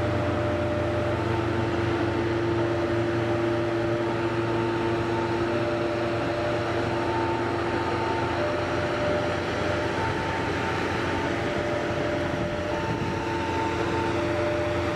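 CC 300 diesel locomotive running as it crawls past hauling a rake of passenger cars: a steady mechanical drone with several held tones, the higher ones fading in and out.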